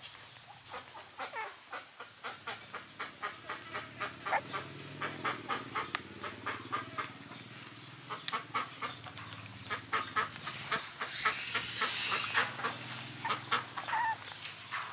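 Newborn puppies suckling at their mother: quick wet smacking clicks, about three a second, with a few short squeaks near the end.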